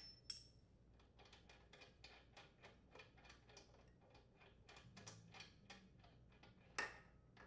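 Faint, quick clicking of a spark plug socket wrench being worked to unscrew the old spark plug from a Honda mower engine's cylinder head, about three or four clicks a second, with a sharper click near the end.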